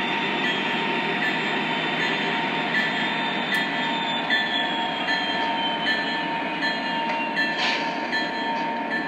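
Lionel Legacy O-gauge Norfolk Southern diesel locomotive running on three-rail track, its rolling wheel noise mixed with its onboard diesel engine sounds, a faint high whine falling slowly in pitch midway as it slows to a stop.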